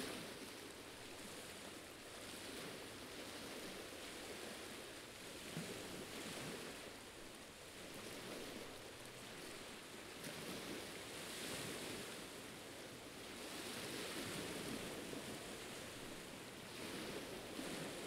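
Faint wash of small sea waves lapping on a rocky shoreline, a steady hiss that swells and eases every few seconds.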